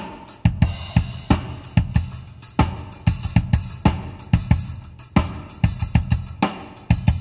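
Drum-kit recording played loud through a car's aftermarket audio system (Mercury DSP 8.4 HD subwoofer box with direct-fit speakers), heard inside the cabin. It has punchy kick and snare hits at a steady beat, about two a second, with cymbals and hi-hat over them.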